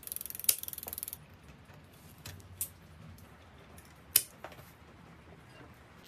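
A ratchet mechanism clicking rapidly and evenly for about a second, then a few separate sharp clicks.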